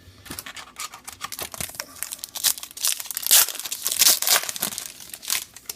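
A Topps Star Wars trading card pack's plastic wrapper being torn open and crinkled in the hands, an irregular run of crackles, loudest in the middle and stopping near the end.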